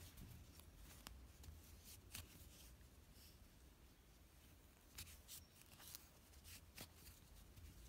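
Near silence: faint rustling of wool yarn being worked with a crochet hook, with a few soft scattered ticks as the stitches are pulled through.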